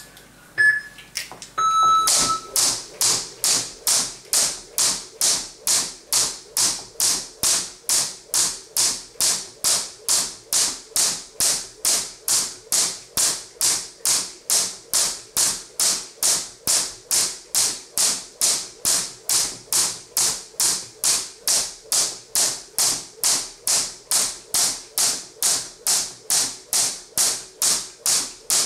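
An interval timer gives a short countdown beep, then a longer start tone about two seconds in. After it a heavy weighted jump rope slaps the floor at a slow, even pace of about two strikes a second.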